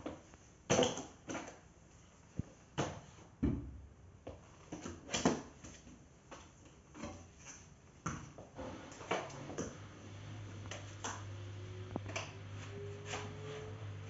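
Hard plastic knocks and clicks as a Bosch BGS21X320 bagless canister vacuum cleaner is set down and its hose and wand are handled. About ten seconds in, a low steady hum starts with a slowly rising whine above it: the vacuum's motor starting up.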